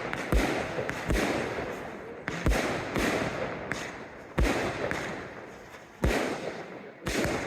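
Aerial fireworks shells bursting: about seven deep booms at irregular intervals of roughly a second, each followed by a fading crackle and hiss, the loudest about four seconds in.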